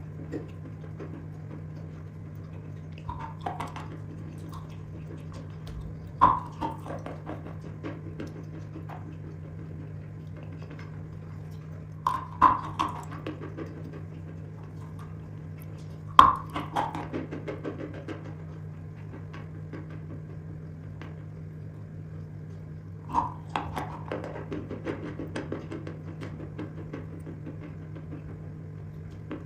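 A person bites into wet chalk five times with a sharp crunch, each bite followed by a few seconds of moist crackling chewing. A steady low hum runs underneath.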